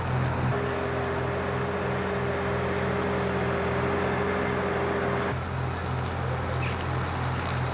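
Compact tractor with a front-mounted mower running steadily as it cuts weeds and grass between rows of bushes: a constant engine drone, with a steady higher whine from about half a second in until around five seconds in.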